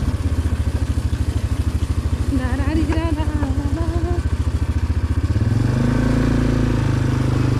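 Quad bike engine running at low speed with a rapid, even pulsing as it rolls over a rough dirt road. About five and a half seconds in, the engine note picks up and smooths out as it accelerates.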